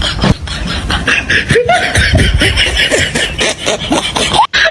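Laughter in rapid short bursts, cutting off suddenly near the end.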